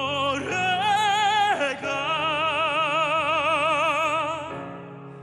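A male classical-crossover tenor singing the Korean lyric '노래가' in an operatic style with wide vibrato: two long held notes, the second fading out about four and a half seconds in, over backing music.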